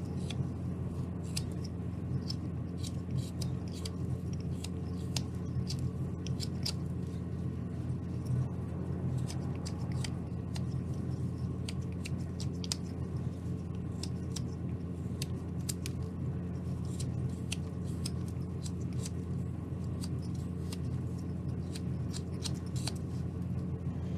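Carving knife slicing shavings from a small basswood ball: a stream of short, crisp snicks of the blade through the wood, irregularly spaced, over a steady low hum.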